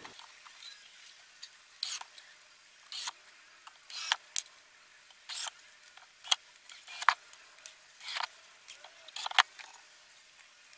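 A dozen or so short clicks, taps and scrapes of screws and a screwdriver being handled while a woofer is fastened into a small subwoofer cabinet, spread unevenly with quiet gaps between.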